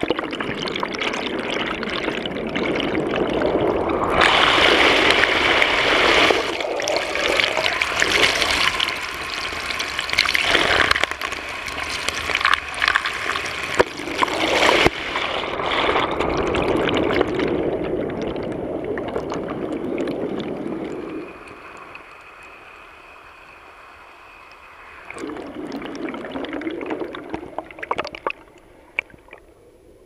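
Small waterfall rushing and splashing right at the camera, with water pouring over and around it. The rush drops much quieter about twenty seconds in, swells again for a few seconds, then falls away near the end.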